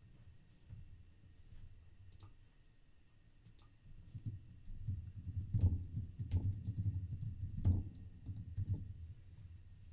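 Typing on a computer keyboard: a few scattered keystrokes at first, then a quicker, louder run of typing from about four seconds in.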